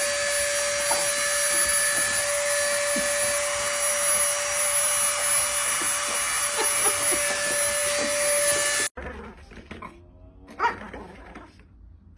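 A corded handheld rotary tool, used as a dog nail grinder, runs loud and steady at one constant pitch, then cuts off suddenly about nine seconds in.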